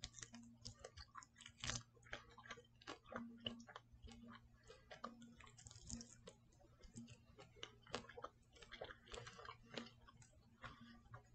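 Faint chewing and biting on an air-fried chicken wing: a scatter of small, irregular mouth clicks.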